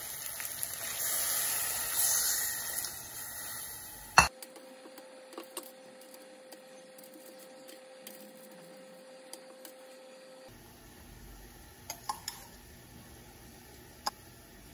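Meat and potatoes sizzling in a cooking pot for about four seconds. A sharp click ends it, and a quiet stretch follows with a faint steady hum and a few light taps.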